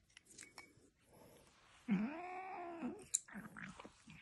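A domestic ginger cat gives one drawn-out complaining meow, about a second long, rising then falling in pitch, while its mouth is held open. Faint small clicks come before it.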